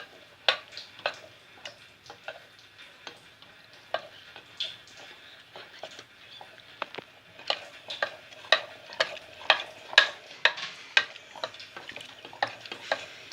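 Stirring starch into cold milk in a pot on the stove, the utensil knocking against the pot in short clicks. The clicks are scattered at first, then settle into a steady rhythm of about two strokes a second about halfway through.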